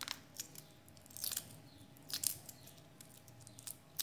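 Hard-boiled egg being peeled by hand: faint, irregular crackles and snaps of the cracked shell breaking off and pulling away from the egg.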